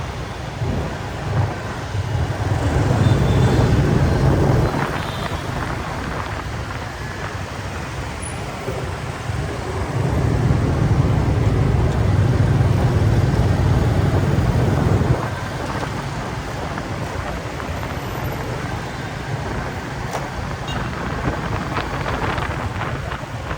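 Road traffic: vehicle engines running with a steady low rumble that swells louder twice, for a few seconds each time.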